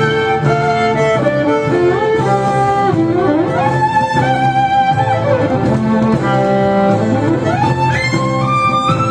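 Live violin playing a melody of held and quickly changing notes, with upward slides about three and a half seconds in and again near the end, over a steady low accompaniment.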